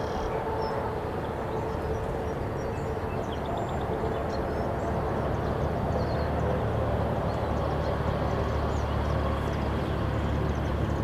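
Steady outdoor background rumble, heaviest in the low end and swelling slightly about halfway through, with faint, scattered high bird chirps over it.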